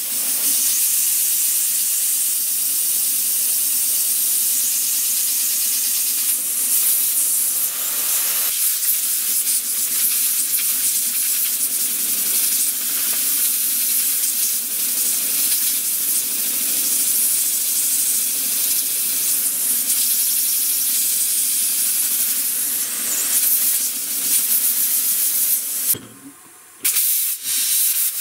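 Small brass twin-cylinder oscillating (wobbler) engine running on a pressurised feed, a loud steady hiss of gas escaping through its ports. The hiss cuts out for about a second near the end, then comes back.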